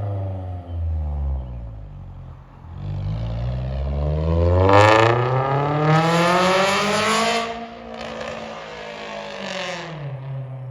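Car engine dropping in pitch, then revving up over a few seconds with a raspy exhaust note and falling back to a steady idle near the end.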